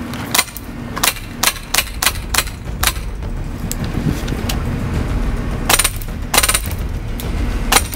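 Polarstar Fusion-engined Ares M110 airsoft rifle firing: sharp cracks of single shots about three a second for the first three seconds, then a quick run of shots around six seconds in and more near the end, over a steady low rumble.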